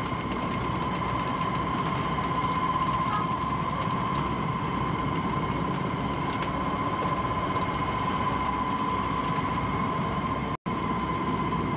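Steady drone of the yacht's twin Chrysler V8 marine engines running underway, heard from inside the cabin, with a steady high whine over it. The sound cuts out for an instant near the end.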